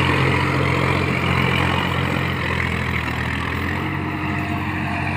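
Sonalika Tiger 50 HP diesel tractor engine running steadily under load while driving a rotavator through the soil.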